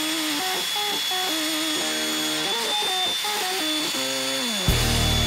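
Music with a melody of held notes that step from pitch to pitch, over a table saw running steadily as a wooden cabinet door frame is cut. A deeper, louder part of the music comes in near the end.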